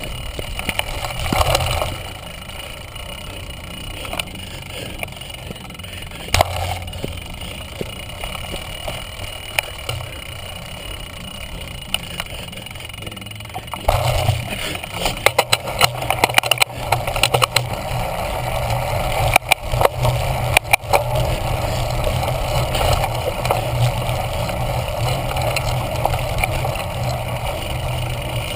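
Cyclocross bike ridden fast over rough grass: wind rushing over the microphone and the bike rattling and clattering over the bumps. About halfway through it gets louder, with a heavier rumble and many sharp knocks.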